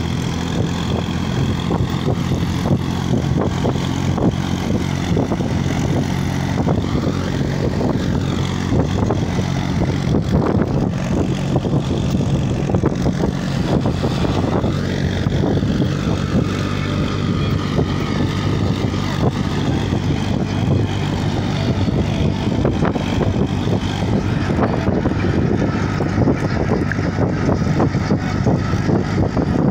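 Tractor's diesel engine running steadily as it pulls a trolley loaded with soil along a road, heard from on top of the trolley, with constant road and wind noise.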